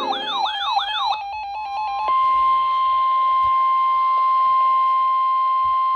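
NOAA Weather Radio 1050 Hz warning alarm tone: one steady, loud, piercing electronic tone that begins about two seconds in, signalling that an emergency weather warning is about to be read. Before it comes a brief warbling tone that rises and falls about three times, then a short stuttering electronic chatter.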